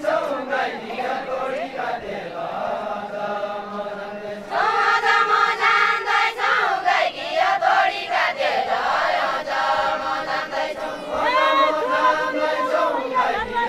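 Group of women singing a Deuda folk song together, a chant-like, slow melody with a louder, fuller entry of voices about four and a half seconds in.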